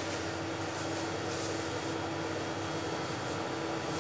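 A steady mechanical hum with one constant low tone, like a running fan or motor, and faint rustling of a thin plastic bag being handled.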